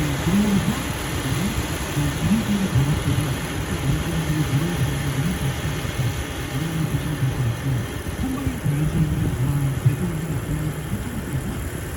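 Farm tractor engine running, its pitch wavering up and down.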